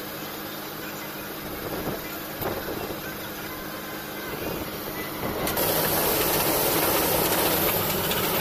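Vishal 408 combine harvester running steadily with a low engine hum while its unloading auger empties grain. About five and a half seconds in, the sound jumps abruptly to a louder, steady rushing noise.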